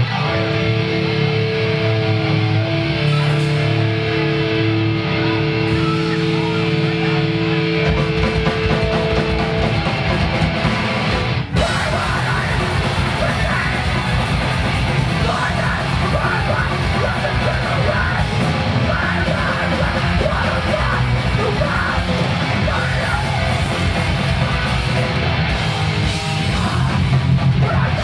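Hardcore punk band playing live: distorted electric guitar holding chords at first, then the full band coming in about eight seconds in, with yelled vocals over it.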